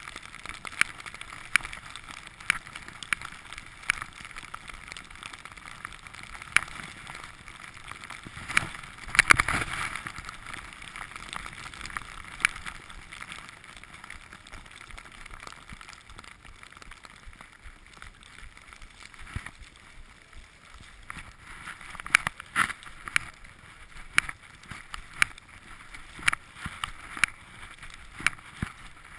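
Skis sliding through deep powder snow with a steady hiss, broken by scattered sharp clicks and a louder whoosh about nine seconds in.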